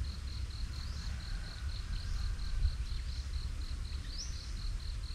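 Insects chirping in a steady pulsing trill, about seven pulses a second, with a second rising chirp repeating about once a second. A low rumble runs underneath.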